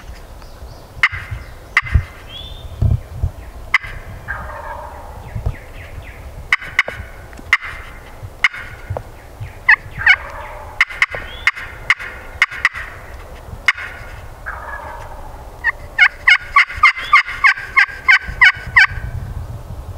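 Woodhaven THP Crystal pot call worked with a wooden striker, imitating a hen turkey: scattered single clucks and short yelp runs, then near the end a steady run of about a dozen evenly spaced yelps, about four a second.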